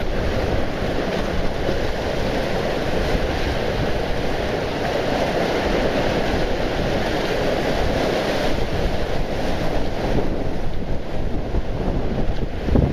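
Small surf waves washing in over a low rocky reef, a steady rush of water, with wind buffeting the microphone.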